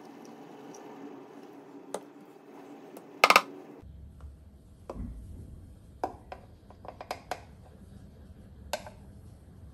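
Kitchenware clinking: a sharp metallic clatter of three quick clinks about three seconds in, as the aluminium moka pot is set down, then scattered lighter clicks and taps of a steel milk pitcher and ceramic cup during the milk pour.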